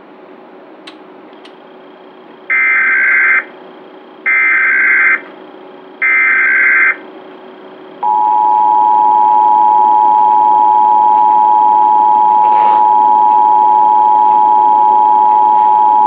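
Emergency Alert System SAME header: three short warbling data bursts a little under a second each, encoding a National Periodic Test. About eight seconds in, the EAS two-tone attention signal (853 and 960 Hz together) starts and holds steady.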